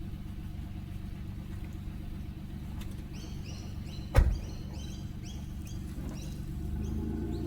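A car's engine running with a steady low hum, broken by one sharp loud knock about four seconds in. A run of short, high chirps starts about three seconds in.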